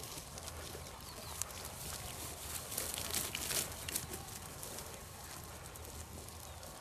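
Rustling and crackling of dry field vegetation as someone moves through it on foot, swelling for a second or two about three seconds in.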